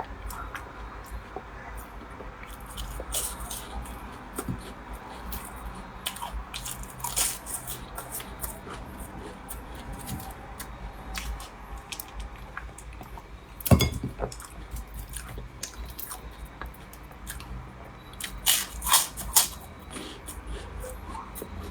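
Close-up eating sounds: chewing a soft, crumbly pastry that has gone loose rather than crisp, with wet mouth clicks and smacks. A sharp knock comes about 14 s in, and a run of louder smacks near the end.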